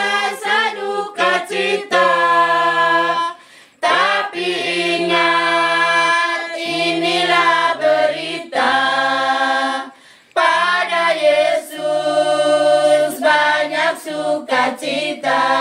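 A group of women's voices singing an Indonesian Christian hymn a cappella, in long held phrases broken by short pauses for breath twice.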